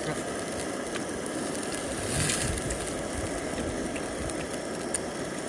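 Horumon (offal) sizzling on a mesh grill over hot charcoal: a steady crackling fry, swelling louder briefly about two seconds in.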